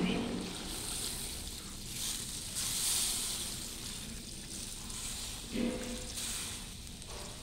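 Thin coconut milk poured into a hot wok of sautéed pork cubes, sizzling as it hits the hot pan; the sizzle is strongest about three seconds in.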